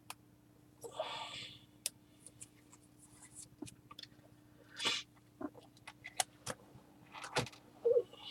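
Trading cards being handled and shuffled: faint soft swishes of cards sliding against one another, with scattered light clicks and taps.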